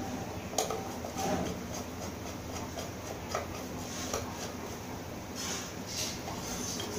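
Scattered light metal clicks and scrapes from a rusty metal fan stand being worked by hand with a tool, over a steady low hum.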